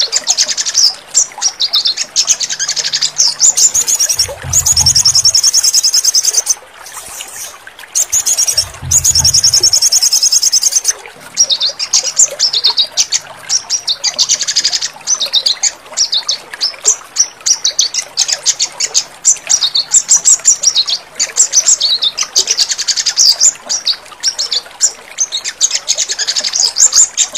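Sogon birdsong played as a training track: fast, high-pitched trills and chirps in quick repeated phrases with short breaks. Two brief low rumbles come in during the first third.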